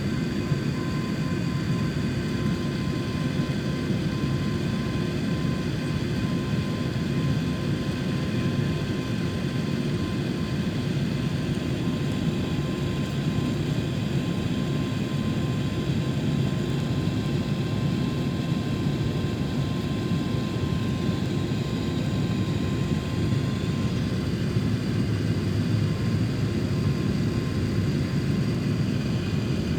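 Cabin noise of a jet airliner on the ground before takeoff, with its engines running: a steady low rumble with several faint, constant whining tones above it.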